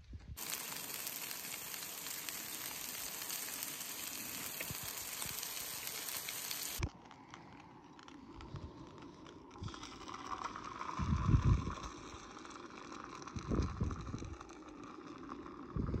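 A steady, even hiss for about seven seconds that cuts off suddenly. Then a few soft, heavy plops as baked beans slide out of a tin into a frying pan.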